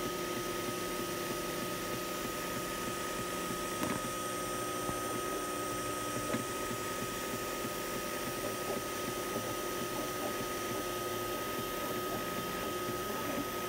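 FDM 3D printer printing a part: its cooling fan runs steadily with a constant high whine, while the stepper motors whir in lower tones that shift in short steps as the print head changes direction.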